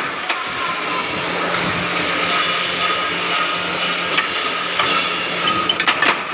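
Flywheel-driven mechanical power press running, its big flywheel spinning with a steady rattling whir and hum. A few sharp metallic knocks come near the end.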